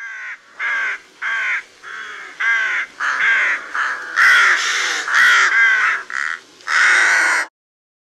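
Rook (Corvus frugilegus) cawing: a run of about a dozen caws in quick succession, the last one drawn out longer.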